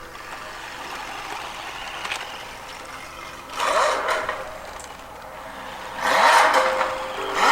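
Engine-revving sound from a toy LaFerrari RC car, running steadily and then surging twice with a rising pitch, about three and a half seconds in and again at about six seconds.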